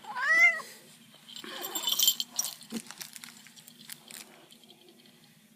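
An 8-month-old cat gives one short meow that rises and falls in pitch. About a second and a half in comes a brief noisy rustle, then a few faint clicks as things settle.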